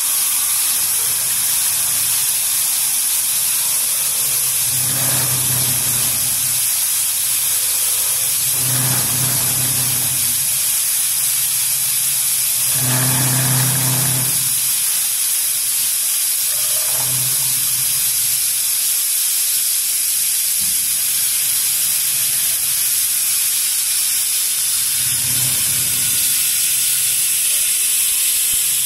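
Artikon DG604 CNC router running, with a steady high-pitched hiss from its spindle. A lower hum swells up for about a second five times as the machine moves.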